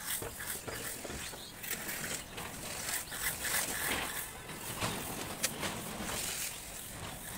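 Hand float scraping over fresh cement-sand wall plaster in uneven strokes.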